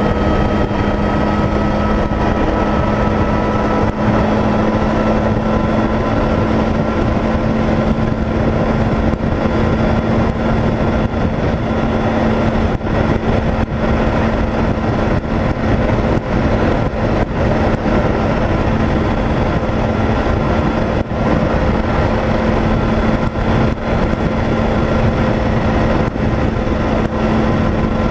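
Motorcycle engine running steadily at highway cruising speed, a constant low hum under heavy wind rush on the camera microphone.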